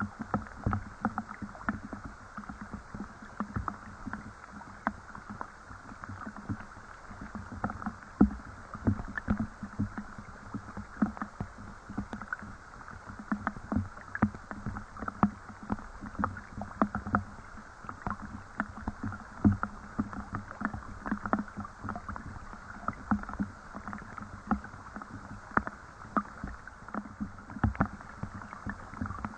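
Rain falling, with big drops striking close by at an irregular pace, several a second, over a steady soft patter.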